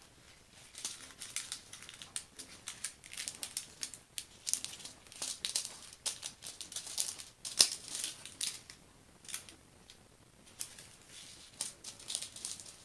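Small plastic bags of resin diamond-painting drills crinkling and crackling irregularly as they are handled and laid out.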